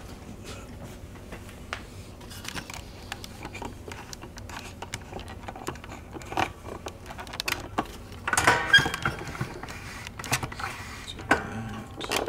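Handling noise as a camera is repositioned: scattered light clicks, knocks and rustling, with a louder cluster of knocks and rustle about eight to nine seconds in and another shortly before the end.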